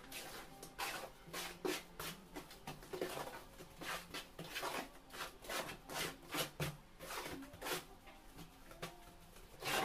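Wet cement mortar being scooped and worked by hand in a basin: a run of short, irregular scrapes and slaps.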